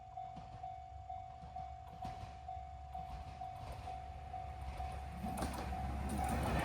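Japanese railway level-crossing warning bell ringing, a single tone repeating about three times a second, which stops near the end as the rumble of an approaching train grows.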